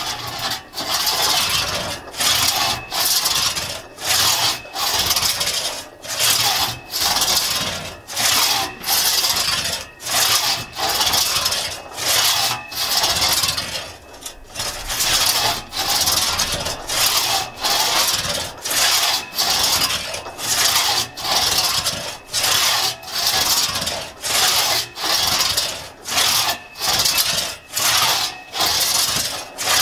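A 4.5-foot Tuttle-tooth one-man crosscut saw cutting through a log, a rasping stroke on each push and pull in a steady back-and-forth rhythm of about three strokes every two seconds, with a brief lull about halfway.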